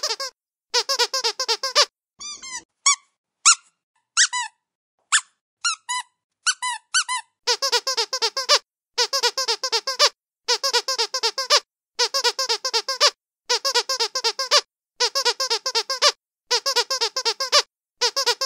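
Squeaky dog toy being squeezed over and over. After a short run of squeaks at the start come a few scattered single squeaks. Then, about a third of the way in, it settles into regular bursts of quick squeaks, each about a second long, with short pauses between.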